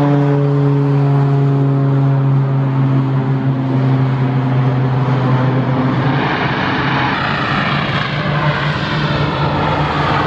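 Air Tractor AT-802A's PT6A turboprop at takeoff power: a steady propeller drone whose pitch sinks slightly as the plane passes. About six seconds in it gives way to a hissier turbine and propeller sound with a rising whine, as a second AT-802A accelerates down the runway.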